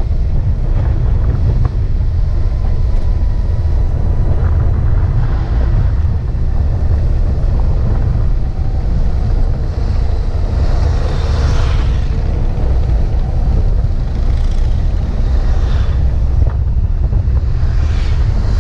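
Wind rumbling steadily across the microphone of a camera on a moving motorcycle, with the bike running underneath it. A louder rushing sweep comes about eleven seconds in and again near the end.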